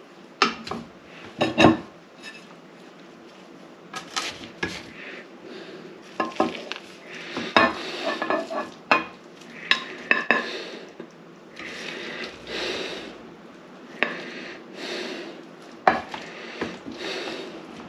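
Cutlery and dishes clinking and knocking, with repeated scraping strokes of a metal utensil against a dish between the knocks.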